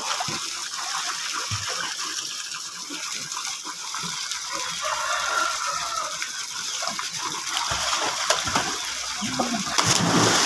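Pool water splashing and sloshing as a child swims and kicks, over a steady rushing hiss of water; the splashing grows louder near the end.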